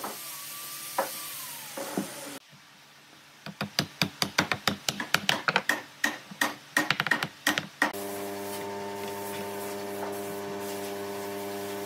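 A quick, irregular run of sharp wooden clicks and knocks as glued pine blocks are pressed and fitted together by hand. From about eight seconds in, a steady electrical hum takes over.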